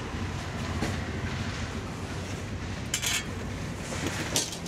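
Steady low rumble of road traffic, with a few sharp clicks and a short metallic clatter about three seconds in.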